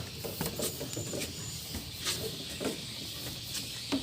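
Swiftlets inside a swiftlet house: scattered sharp clicks, with a few brief high chirps about a second in. The house's call-playing sound system is dead, so these are the birds themselves.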